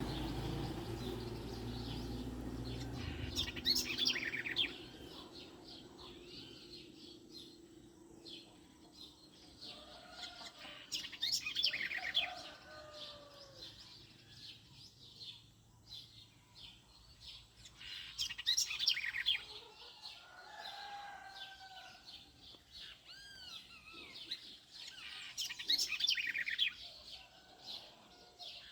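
Morning birdsong: one bird repeats a loud phrase of quick falling notes about every seven seconds, four times, while other birds give softer, lower calls in between. A low rumble fades out after the first few seconds.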